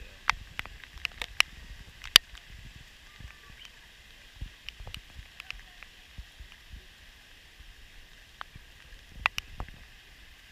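Raindrops ticking irregularly on a GoPro's housing over a steady hiss of rain, with one sharper tap about two seconds in.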